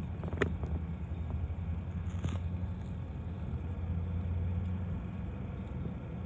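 Freight train rolling slowly through a road grade crossing, heard from inside a stopped car: a steady low rumble, with two brief sharp sounds from the train about half a second in and a little after two seconds.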